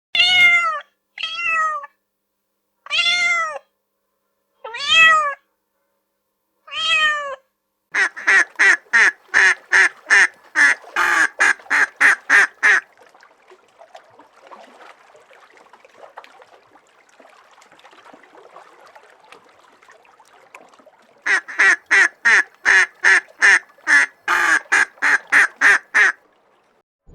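Cat meowing five times, each call falling in pitch. Then two runs of short, quick calls at about four a second, split by a stretch of faint rustling.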